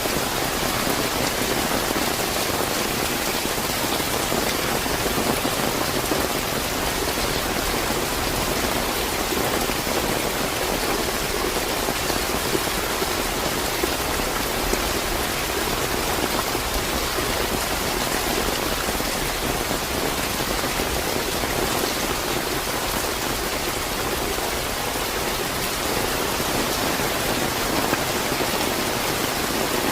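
Steady, fairly heavy rain falling and pattering on surfaces, an even dense hiss with faint scattered drop ticks.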